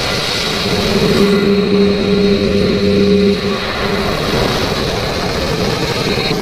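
Mechagodzilla sound effect: a loud, continuous mechanical roar, engine-like, with a steady droning hum laid over it from about a second in until past the three-second mark.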